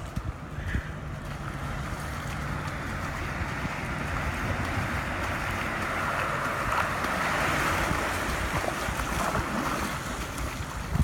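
Moving vehicle: a steady low engine hum under a rushing noise that swells toward the middle and eases off near the end.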